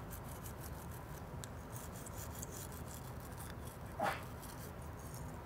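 Teeth being brushed with a toothbrush: soft, quick scrubbing strokes of the bristles on the teeth. A brief vocal sound from the person being brushed about four seconds in.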